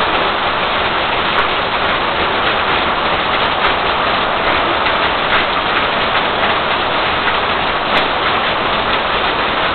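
Heavy thunderstorm downpour: steady, dense rain noise, with a few sharp ticks through it.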